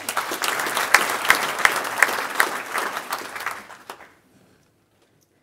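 Audience applauding, a dense patter of many hands clapping that dies away after about four seconds.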